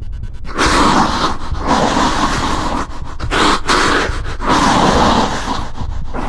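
Heavy, rasping breaths in several long bursts over a low throbbing drone, a horror sound effect.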